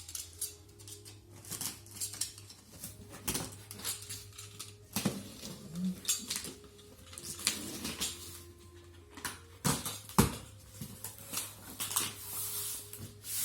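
Cordless vacuum cleaner and its packaging being handled and unpacked: irregular knocks, clicks and rustling, with a steady low hum beneath.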